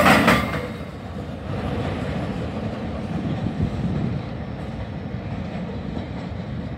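The last boxcars of a freight train clattering over the rail joints as they pass, with a few sharp clicks in the first half-second. The sound then drops to a steady low rumble as the train draws away.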